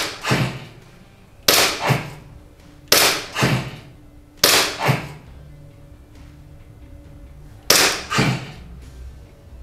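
Airsoft pistol fired four times in slow succession, roughly a shot every second and a half with a longer pause before the last. Each sharp crack is followed shortly by a second, weaker crack.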